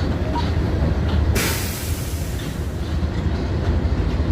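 A DB Class 185 electric locomotive and its train running past on the rails with a steady low rumble. About a second and a half in, a sudden hiss starts and fades away over about a second.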